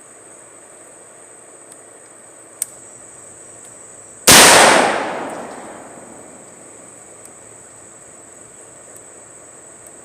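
A single rifle shot from a Smith & Wesson M&P15 Sport II AR-15 firing .223 Remington, about four seconds in, its report echoing and dying away over about a second and a half. A short sharp click comes a couple of seconds before the shot.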